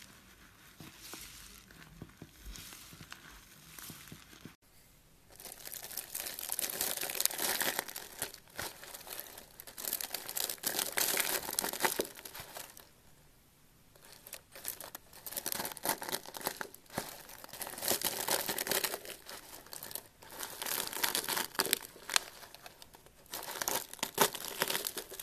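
Dry, brittle curled shavings crushed with a wooden pestle in a plastic tub, giving a dense crackling crunch in repeated bunches, with a short pause about halfway through. The first few seconds are much quieter.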